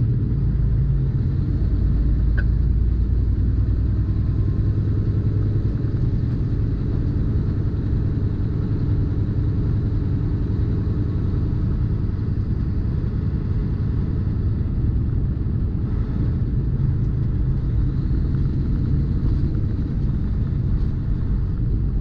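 Tractor-trailer's diesel engine and tyre/road noise droning steadily while driving, a continuous low rumble heard from inside the cab.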